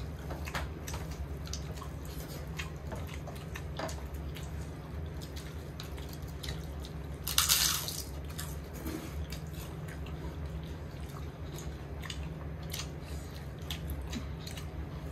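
People eating at a table: scattered small clicks and smacks of chewing and of utensils on dishes, over a steady low hum. About halfway through comes one louder, hissy noise lasting about half a second.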